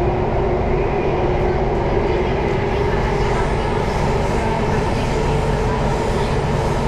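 Singapore MRT train running through a tunnel, heard from inside the car: a steady, even noise of wheels on rails and traction motors, with a low hum underneath.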